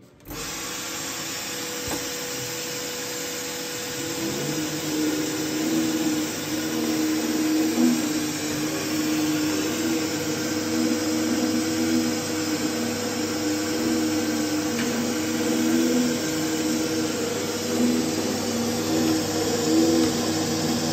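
Foliant Gemini Compressor 400A laminating machine running: a steady mechanical whirring hum that starts abruptly. About four seconds in it gets louder, with a low droning tone that wavers slightly.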